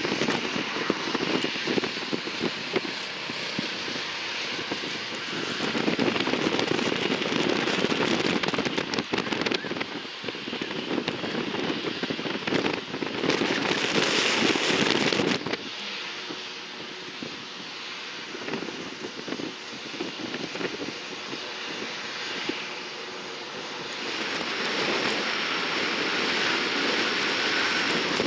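Jet aircraft engines running loud with a crackling rumble. The sound changes abruptly a few times, about halfway through and again near the end.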